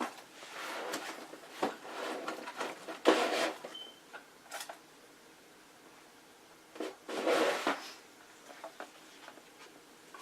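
Rustling, scraping and light knocks of craft supplies being handled and set down on a work table, in several short bursts; the loudest comes about three seconds in and another around seven seconds.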